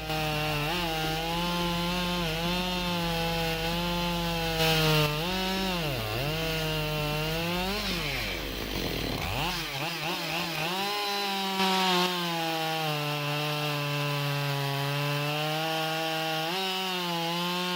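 Husqvarna 572 XP two-stroke chainsaw running at high revs while cutting wood, a steady high engine note. It dips briefly in pitch a few times, around six and nine seconds in, before coming back up.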